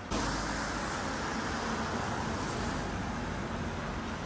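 A car driving up and passing close by: steady tyre and engine noise, starting and stopping abruptly.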